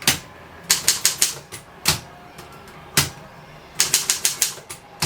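Triumph Durabel manual typewriter being typed on: a quick run of key strikes about a second in and another near the end, with single clacks between them.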